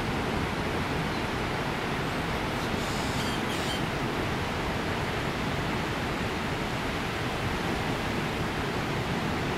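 Steady rushing roar of ocean surf breaking along the beach, even and unbroken throughout.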